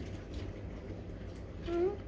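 Domestic cat gives one short, slightly rising meow near the end, a cry of assertion aimed at the dog facing it.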